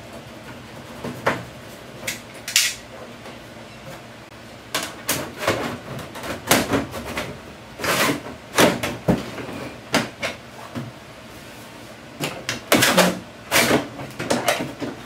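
Irregular sharp plastic clicks, knocks and scrapes as a plastic vent panel is pushed and worked into its frame on the back of a portable air conditioner, in bunches with short pauses between.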